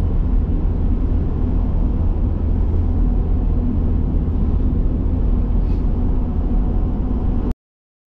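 Steady low rumble of a camper van's engine and tyres, heard from inside the cab while it drives along a paved road. It cuts off abruptly near the end.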